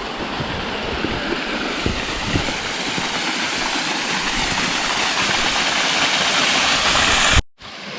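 Steady rush of falling water from a jungle waterfall, growing a little louder, with a few faint low knocks in the first couple of seconds. It cuts out abruptly for a moment near the end and comes back slightly quieter.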